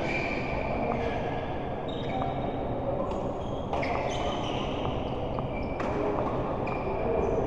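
Doubles play on an indoor court: shoes squeak on the floor several times and a few sharp hits sound over a steady hall background.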